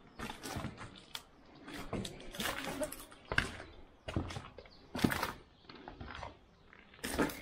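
Footsteps crunching over rubble and debris of broken bricks and wood, at an uneven walking pace.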